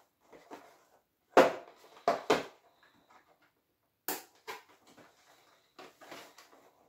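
Toy packaging rustling and crackling in short, sharp bursts as it is worked open by hand. The loudest crackle comes about a second and a half in, followed by a few more at irregular intervals.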